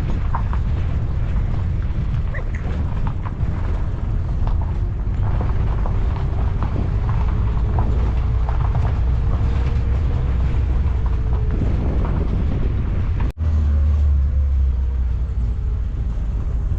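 Strong wind buffeting the microphone: a loud, steady, deep rumble with a brief break about thirteen seconds in, followed by an even heavier rumble.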